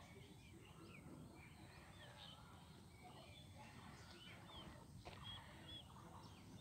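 Faint chirping of several birds: many short calls rising and falling in pitch, scattered throughout, over a low steady rumble.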